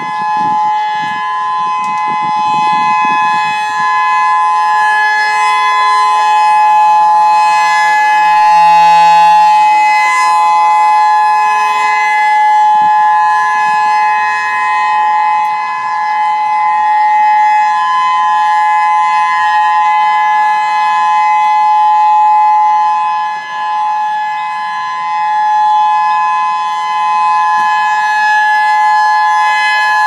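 EOWS 612 electronic civil defense siren sounding a steady tone for a routine test of the outdoor warning system. Its pitch holds steady while its loudness swells and fades every several seconds.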